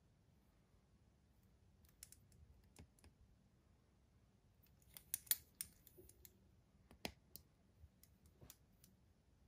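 Faint, scattered clicks and light metallic taps from a stainless-steel Bulova chronograph and its link bracelet being handled in the fingers, loudest in a quick cluster about five seconds in and a single click about seven seconds in.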